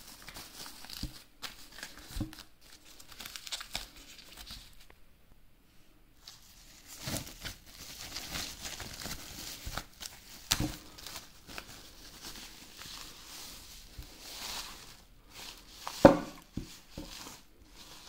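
Thin low-density polyethylene bag crinkling and rustling as a portable speaker is pulled out of it by hand, with a few knocks, the loudest near the end.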